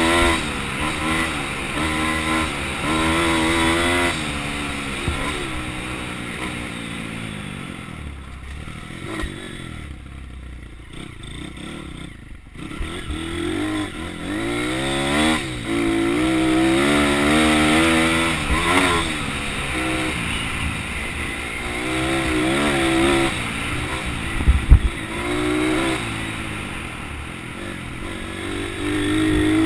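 Small single-cylinder pit bike engine revving up and down as the bike is ridden along a rough dirt trail, easing back to a low throttle for several seconds in the middle. A couple of sharp knocks come about 25 seconds in.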